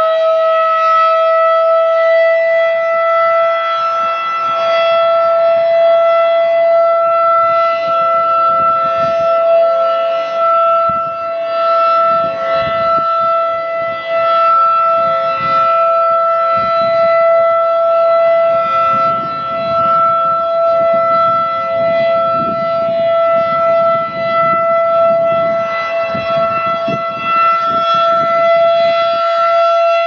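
Federal Signal 2001-DC battery-powered rotating siren sounding a single steady tone for its monthly tornado siren test, rising slightly in pitch over the first couple of seconds and then holding. A second, fainter siren tone sounds underneath.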